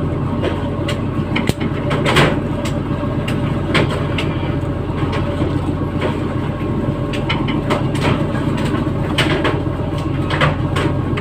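Steady low engine drone of a working fishing vessel, with scattered knocks and clanks.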